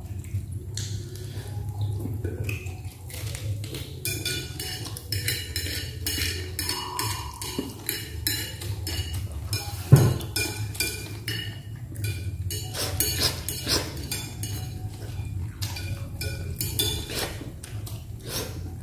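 Spoons and cutlery clinking and scraping on china plates and bowls as people eat, a run of short irregular clinks with one louder knock about ten seconds in, over a steady low hum.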